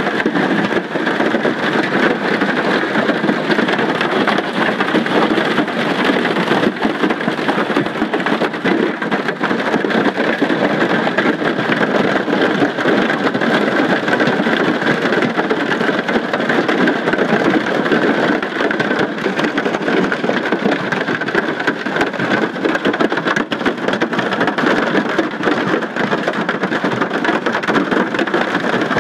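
Large hail and heavy rain pounding on an airliner's fuselage and windows, heard from inside the cabin as a loud, continuous clatter of dense rapid impacts over a steady roar. The hail is large enough to dent and damage the aircraft.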